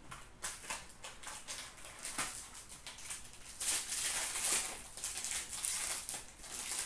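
A cardboard trading-card box and a foil card pack handled by hand: light taps and rustles, then from about three and a half seconds in the crinkle and tear of the foil wrapper being ripped open.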